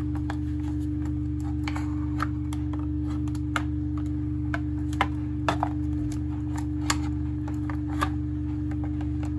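A tumble dryer runs with a steady hum, under about ten irregular sharp clicks and taps of plastic as a screwdriver pries at the snap-fit casing of a floor sweeper.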